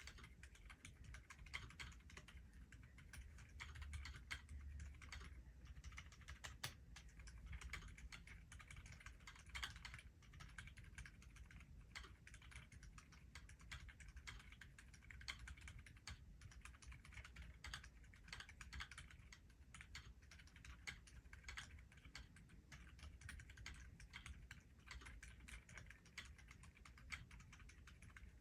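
Continuous fast typing on a Keychron Q2 mechanical keyboard fitted with Gazzew Bobagum silent linear switches and GMK Laser doubleshot ABS keycaps: a steady stream of quiet, muted keystrokes.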